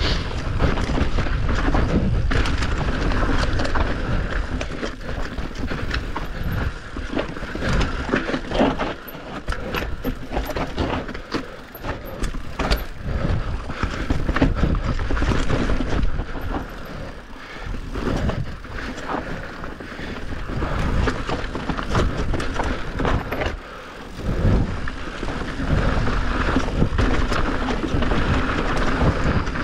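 Enduro dirt bike engine revving up and down over a trail, with many sharp knocks and a brief drop in throttle about three-quarters of the way through.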